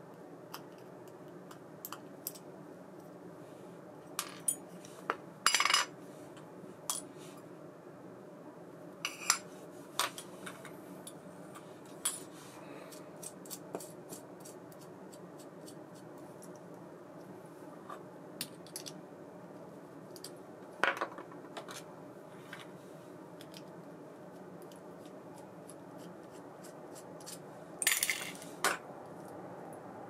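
Small metal parts of a baitcasting reel clicking and clinking as it is taken apart by hand with a screwdriver, with pieces set down on metal parts trays; scattered single clicks and a few louder clusters of clinks, over a steady low background hum.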